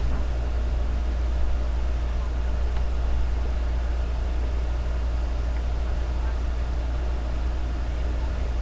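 Steady low hum with an even hiss over it, unchanging throughout: background room or equipment noise, with no distinct events.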